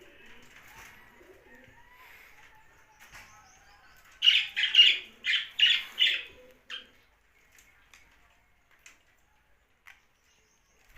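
Young budgerigar chirping: soft, faint chatter, then a loud run of about six quick chirps about four seconds in, followed by a few faint clicks.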